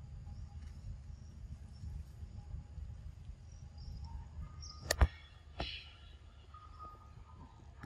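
Outdoor forest ambience: a low rumble with faint, thin, high steady tones. About five seconds in it is broken by two sharp clicks half a second apart, the first the loudest.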